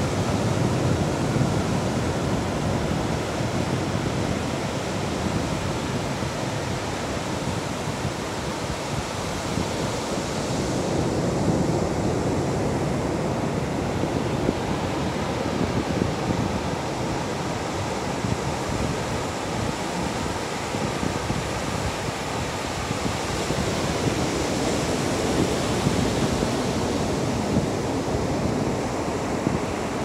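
Ocean surf breaking on the shore: a steady rushing wash that slowly swells and eases.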